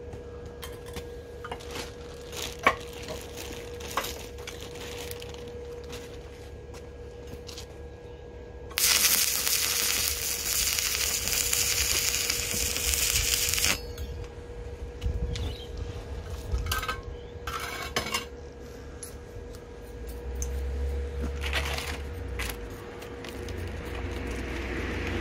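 Metal parts and tools clinking and knocking in a workshop over a steady faint hum, with a loud hissing rush that lasts about five seconds near the middle.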